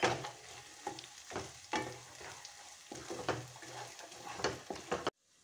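Wooden spatula stirring and scraping thick pumpkin halwa in ghee in a kadai, folding in fried cashews and raisins, with a light sizzle. The strokes are irregular, and the sound cuts off abruptly near the end.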